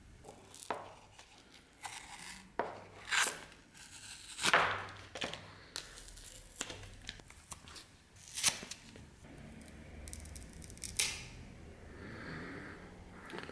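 Old, dry wood being pried and torn off a blade's tang by hand: a series of irregular sharp cracks and tearing snaps as the remains of the wooden handle split away.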